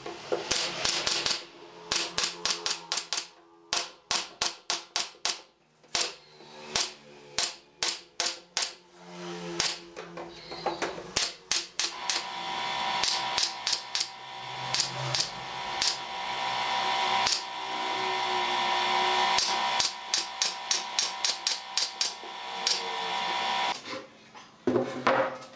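Pneumatic brad nailer firing a rapid series of sharp shots into pine framing, about two a second, with a second run of shots near the end. A steady drone fills the stretch between the two runs.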